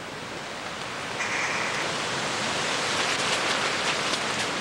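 Storm noise on a tent: a steady rush of rain and wind against the fabric, growing louder about a second in, with a dense scatter of small hits.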